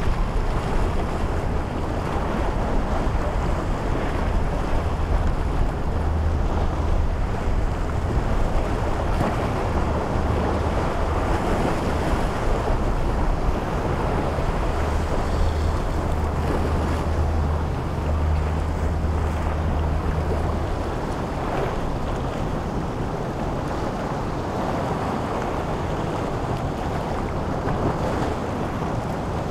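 Motorboat engine drone, a low steady hum that fades away about two-thirds of the way through, over the wash of waves and wind on the microphone.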